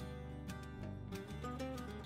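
Background instrumental music with plucked, guitar-like notes over a steady low bass line.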